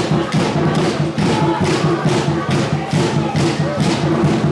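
Loud music with a fast, steady thumping beat, about three beats a second, with voices chanting or singing over it.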